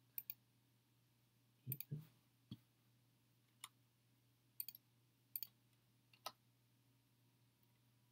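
Scattered faint clicks of a computer mouse and keyboard, about a dozen of them, some in quick pairs, over a faint steady low hum.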